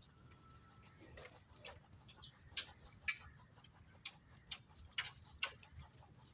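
Irregular sharp clicks and taps, a second or so apart, over a faint low hum.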